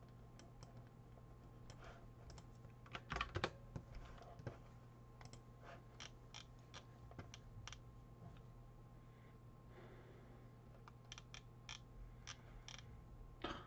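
Quiet, irregular clicks and taps of a computer keyboard and mouse, with a brief cluster of louder clicks about three seconds in, over a faint steady low hum.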